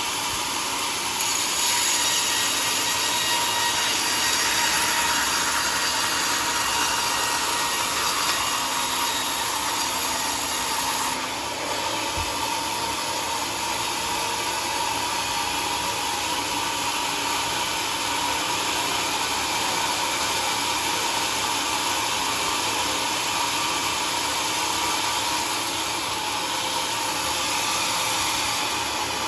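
Homemade sawmill running and cutting through a log: a steady whining saw-and-motor noise that grows a little louder about a second and a half in.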